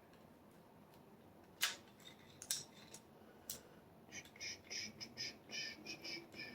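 Small metal parts of a padlock being handled during disassembly: a few sharp metallic clicks, then from about four seconds in a run of short rasping scrapes, roughly three a second.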